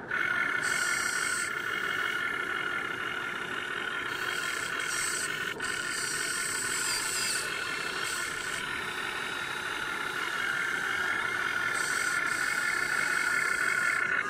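Huina 1580 RC excavator's electric motors and gearboxes whining steadily while the arm and bucket dig sand. A higher-pitched whine cuts in and out several times as different functions are worked.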